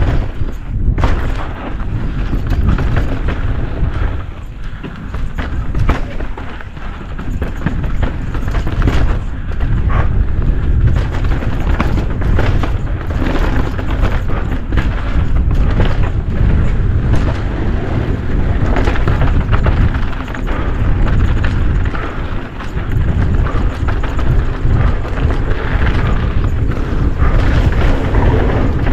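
Downhill mountain bike ridden fast down a dirt trail: wind buffets the microphone in a heavy, gusting rumble, over tyre noise on the dirt and frequent short clatters and knocks as the bike hits bumps.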